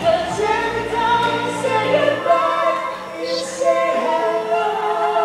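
Music with singing: voices holding long notes over accompaniment, from a live male-and-female vocal duet.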